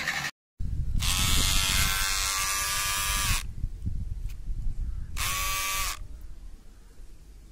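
Electric hair trimmer motor switched on and running with a steady whine for about two and a half seconds, then switched off, and switched on again briefly a second or so later. This is a test of its repaired on/off switch.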